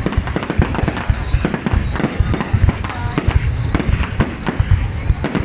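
Fireworks display: a dense, continuous run of sharp bangs and crackles, several a second, over a deep booming rumble.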